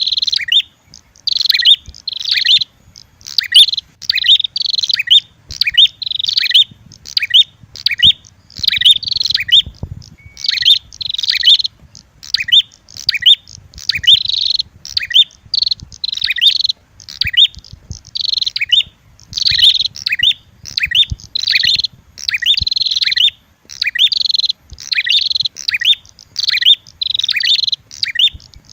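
Prenjak (prinia) calls in a lure recording that mixes a red-headed prenjak with a female prenjak's fighting call: sharp, high chirping phrases repeated one after another, about one to two bursts a second with barely a pause between them.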